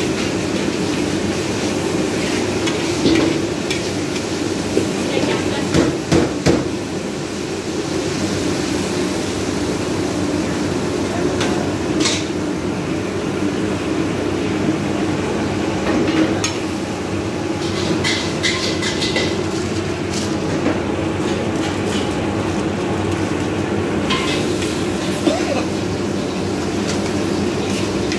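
Metal spatula scraping and knocking against a large iron wok as chili paste is stirred and fried, with sharp clanks scattered through, over the steady noise of a gas burner.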